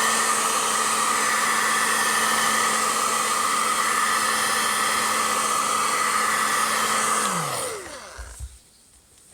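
Hot-air blower running steadily, heating the new glass phone screen so its double-sided tape sticks better. About seven seconds in it is switched off and its motor winds down with a falling pitch, followed by a couple of faint knocks.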